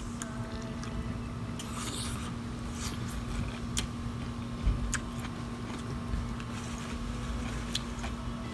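Steady low hum of machinery coming from a neighbouring house, with scattered soft clicks and smacks of grapes being bitten off the bunch and chewed close to the microphone.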